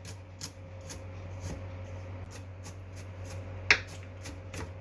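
A series of short, sharp clicks and knocks at irregular intervals, with one much louder knock a little before the end, over a steady low hum.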